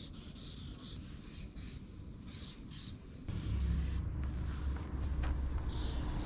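Aerosol spray paint can hissing in short, repeated bursts as a graffiti outline is sprayed onto a brick wall. About three seconds in, a steady low rumble joins it and the hiss runs on more continuously.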